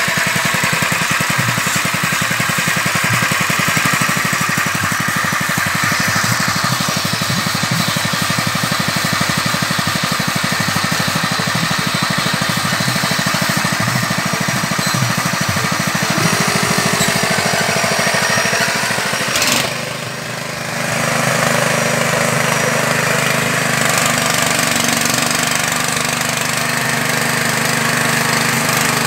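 Small engine running the fish-feed pellet machine, with a rapid, even chugging. About twenty seconds in the sound dips briefly, then carries on as a steadier hum.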